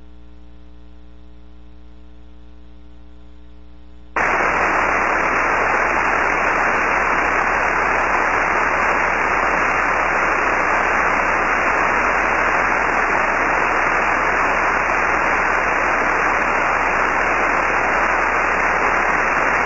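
A buzzy electrical hum for about four seconds, then abruptly loud, steady static hiss from a radio receiver tuned to a channel with no signal.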